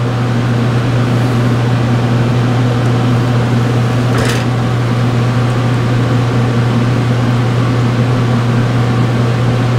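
Steady low hum of running laboratory equipment at a gas chromatograph, even throughout, with a brief hiss about four seconds in.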